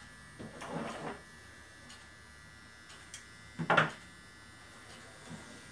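Hand tools and a wooden model hull handled on a workbench: a short rustle about half a second in, then a sharp knock a little before the four-second mark as the pliers are set down on the bench, over a steady faint electrical hum.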